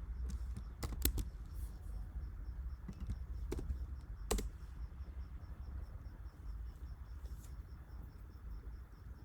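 A few scattered clicks from a computer keyboard and mouse, mostly in the first half, over a low steady hum.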